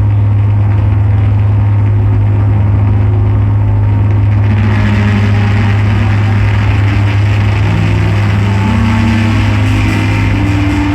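Loud electronic drone-noise music: a steady, deep bass drone with shifting higher tones above it, joined about halfway through by a swelling layer of harsh hiss.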